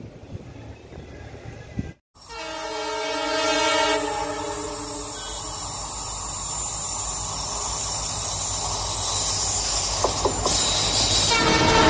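Diesel locomotive horn sounding a chord of several notes for about two seconds, then the steady rumble and rail noise of the train coming on. The horn sounds again, louder, near the end.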